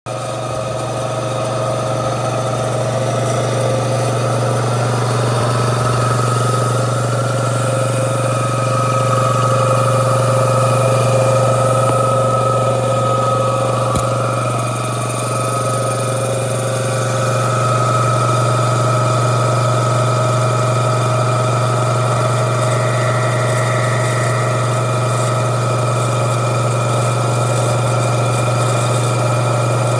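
Old electric air compressor running: the motor driving a belt-driven piston pump on a horizontal tank, a steady loud mechanical hum, with one brief click about halfway through.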